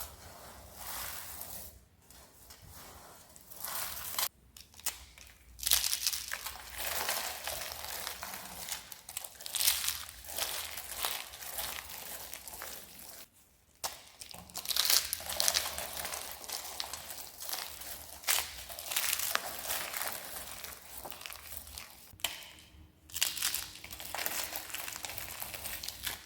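Dry, crispy soap being crushed: dense crackling crunches in long runs, broken by a few short pauses.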